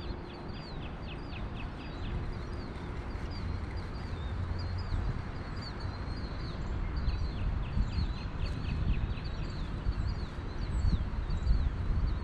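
A small songbird singing high, quick runs of short falling notes, about five a second, one run at the start and another about seven seconds in, with scattered chirps between. Wind rumbles low on the microphone.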